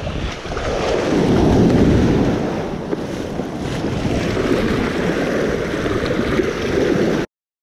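Surf washing in around the legs, with wind buffeting the microphone; the rumble swells twice and cuts off abruptly near the end.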